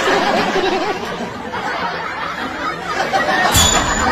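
Several people chuckling and laughing over indistinct chatter.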